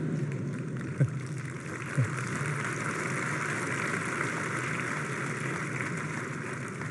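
A large seated audience applauding steadily, with two brief louder sounds about one and two seconds in, the clapping easing slightly near the end.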